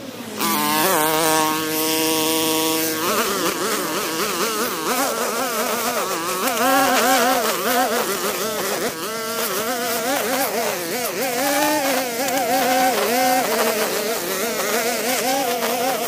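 Background music starting about half a second in: a held chord for the first few seconds, then a wavering, heavily ornamented melody.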